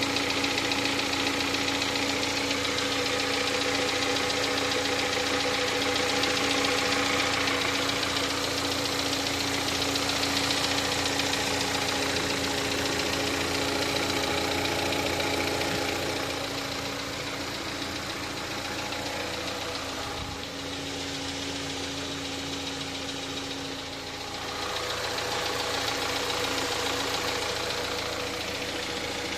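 Skoda Octavia's 1.8 TSI (CJSA) turbocharged four-cylinder petrol engine running cold with a knock in it. The knock appears only on a cold engine and goes away once it warms up. The sound drops a little past the middle, then grows louder again.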